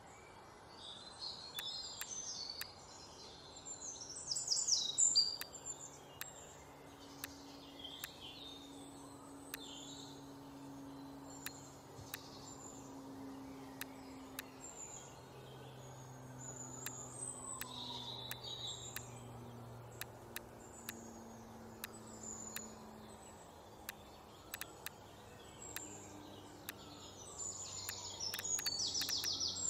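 Birds chirping and calling over soft low held tones, with frequent short sharp computer mouse clicks scattered throughout.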